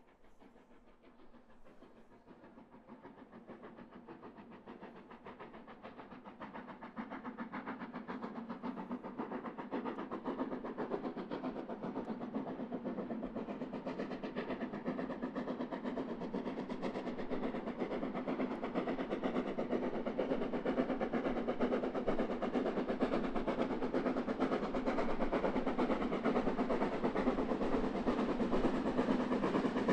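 Metre-gauge DR Class 99.23 2-10-2 tank steam locomotive No 99 234, working under steam with its train, chuffing and clattering over the track as it approaches, growing steadily louder throughout.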